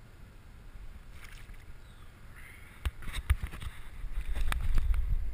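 Water splashing and knocks around a float tube as a caught bass is let go, with a few sharp knocks near the middle and a low rumble building from about four seconds in.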